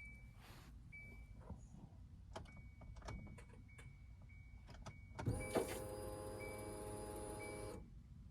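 Kia Soul's new in-tank electric fuel pump whining steadily for about two and a half seconds from about five seconds in, then stopping: the pump priming the fuel system as the key is switched on. Before it come a few clicks and a dashboard chime repeating about once a second.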